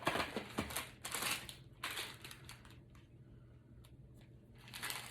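Fast-food paper wrappers and packaging crinkling and rustling as they are handled, in scattered crackles that come mostly in the first two seconds and thin out after.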